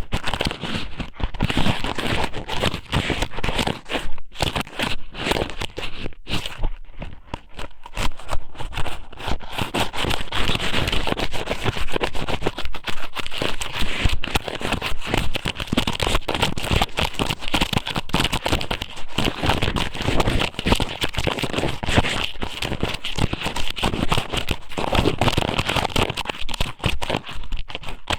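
Squid sōmen (thin raw squid strips) being pushed and rubbed inside a microphone's ear, giving dense, close crackling and rustling.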